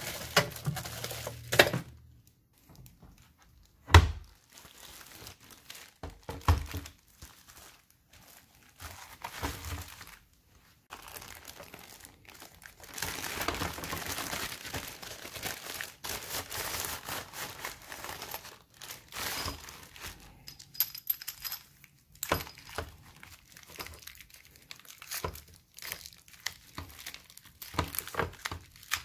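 Plastic packaging bags crinkling and rustling as bagged hoses and a brass faucet adapter are handled and unwrapped, with a few sharp knocks, the loudest about four seconds in.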